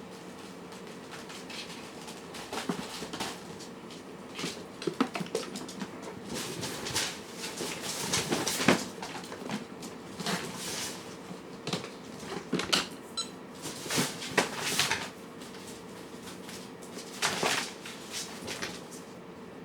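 Kittens and cats eating from food dishes: irregular small clicks, crunches and scrapes of food and bowls, busiest through the middle, over a steady low hum.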